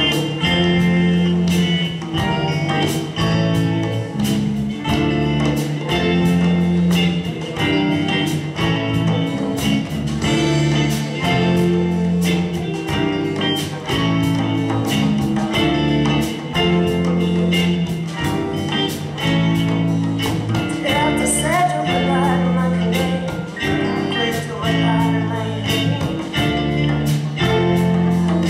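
Live music: a band playing a song with a steady beat and a repeating bass line.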